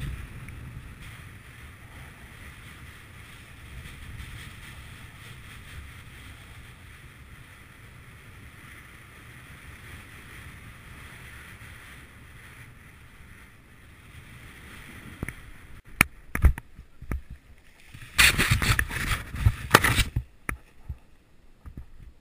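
Steady wind rushing over a camera microphone during a parachute descent under canopy. About sixteen seconds in it gives way to sharp knocks and a few seconds of loud, ragged buffeting and rustling as the skydiver lands on grass and the canopy comes down.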